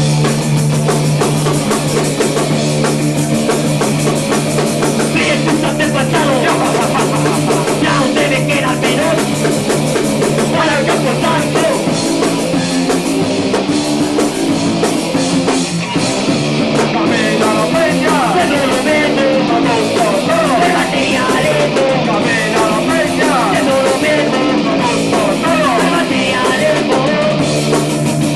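Live rock band playing loudly in a steady, unbroken stretch, with electric guitar, bass and drum kit.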